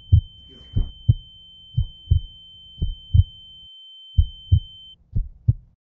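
Heartbeat sound effect, a low double thump about once a second, under a steady high-pitched ringing tone that cuts off about five seconds in.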